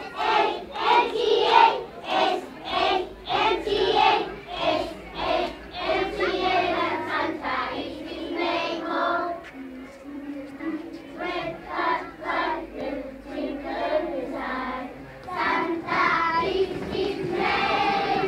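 A group of young children singing together in unison, in a steady rhythm.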